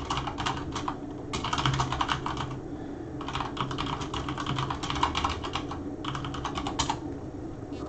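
Computer keyboard typing in five short bursts of rapid keystrokes, with brief pauses between them, as a web search is typed in.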